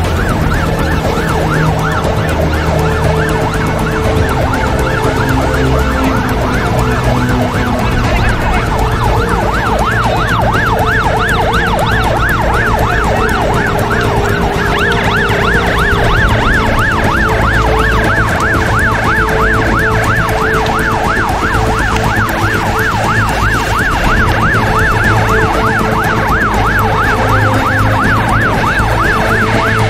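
Emergency vehicle siren sounding a fast up-and-down yelp, over the low steady running of vehicle engines.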